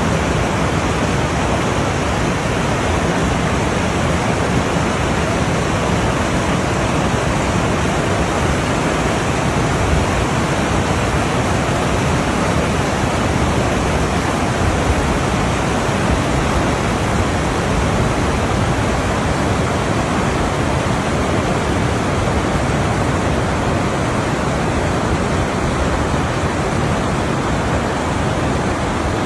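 Fast-flowing mountain river rushing, a loud steady wash of water noise that does not change.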